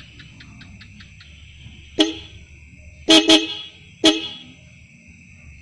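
Motorcycle horn on a Suzuki Raider 150 sounding four short beeps: one about two seconds in, a quick double a second later, and a last one about a second after that.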